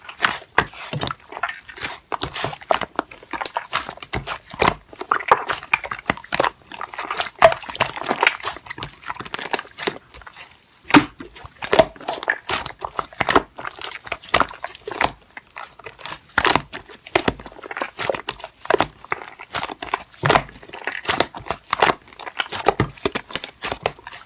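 Slime being squished and stretched by hand, with a dense run of irregular sticky clicks and crackling air-bubble pops.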